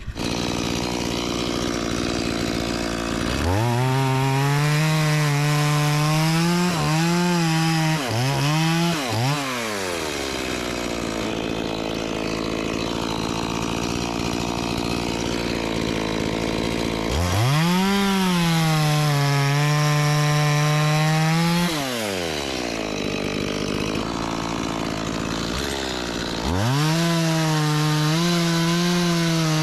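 Chainsaw cutting teak: the engine idles, then is throttled up to full speed three times. Each run is held for several seconds before it drops back to idle, the first with a few brief dips in speed.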